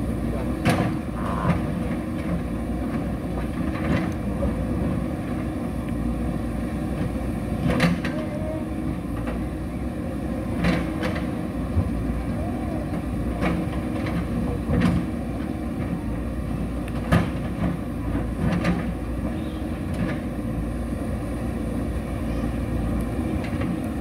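JCB backhoe loader's diesel engine running steadily under hydraulic load, with sharp knocks and clanks every few seconds as the backhoe bucket works against the concrete of an old bridge.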